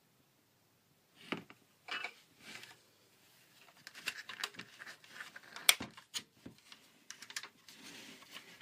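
Fingers handling a hard plastic Fisher-Price shape-sorter cookie jar toy: scattered clicks and taps on its shell and base, with faint rubbing in between.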